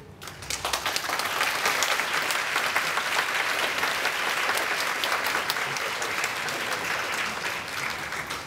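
Audience applauding, the clapping swelling up within the first second and then holding steady, easing a little near the end.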